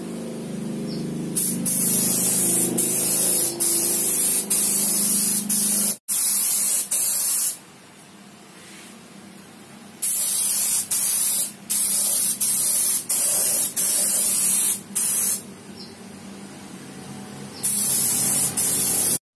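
Compressed-air spray gun hissing in a series of trigger bursts, some short, some several seconds long, with pauses between, as it sprays epoxy primer.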